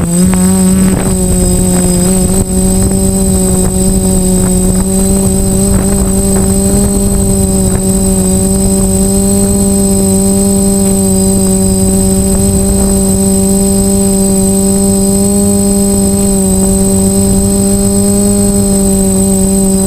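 DJI F450 quadcopter's brushless motors and propellers humming steadily at a nearly even pitch, with a thin high whine above the hum and a low rush of prop wash.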